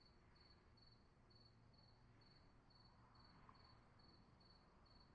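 Near silence, with a very faint high-pitched pulsing tone repeating about four times a second.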